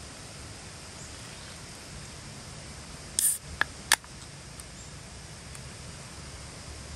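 Steady rushing of a flowing stream. A little past the middle, a brief high scrape and two sharp clicks cut through it.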